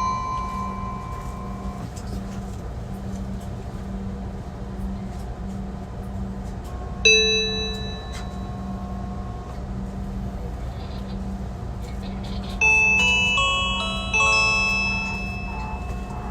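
On-board announcement chimes of a JR Central 373-series express train, heard inside the passenger car over a steady low hum. The last note of one chime fades at the start, a single bright ding sounds about seven seconds in, and a short melody of bell-like notes begins near thirteen seconds, with a second phrase about a second and a half later.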